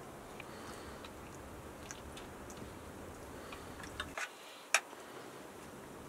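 Scattered light clicks of metal forks and spoons against a plate, with quiet chewing. The sharpest click comes a little under five seconds in.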